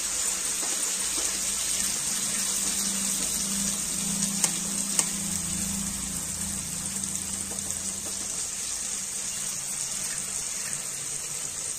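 Hot oil sizzling steadily in an aluminium pot of fried onions, chillies and spices as raw eggs are cracked into it, with two short taps a little before the middle.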